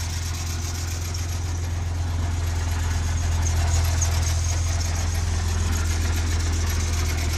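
Acura NSX V6 engine idling steadily with a low, even hum. The belts and pulleys are being checked for a squeak.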